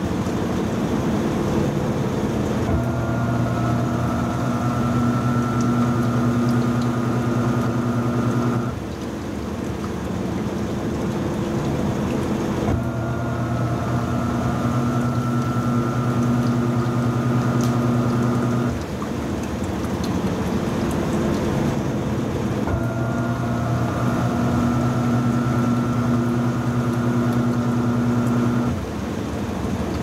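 Panasonic NA-F180P7T 18 kg washing machine in its spin cycle with a king-size comforter. A steady hum with a whine on top comes in for about six seconds and drops out for about four, three times over, above a continuous rumble.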